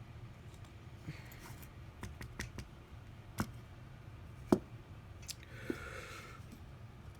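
Small sharp clicks and taps of a precision screwdriver, tweezers and tiny screws on an iPhone SE's metal housing as its screws are put in, about eight taps scattered through, the loudest about four and a half seconds in. A short soft hiss follows about a second later, over a faint steady low hum.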